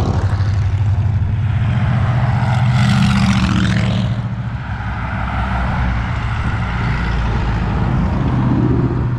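An engine running steadily under loud rushing wind noise, with a brief swell in the noise about three seconds in.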